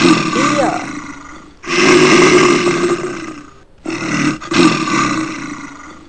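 A bear roaring: three long roars of about two seconds each, with short breaks between them.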